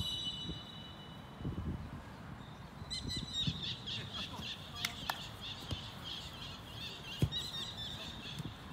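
Birds chirping rapidly and continuously from about three seconds in, with a few dull thumps of a football being kicked on grass.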